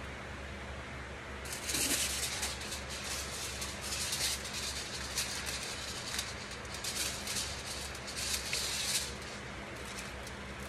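Hair-colouring foil crinkling and crackling in irregular bursts as it is handled and folded, starting about a second and a half in and stopping near the end, over a steady low hum.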